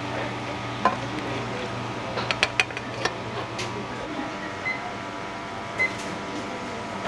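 Steady hum of a restaurant kitchen's ventilation, with a few sharp metallic clinks of cooking utensils scattered through it.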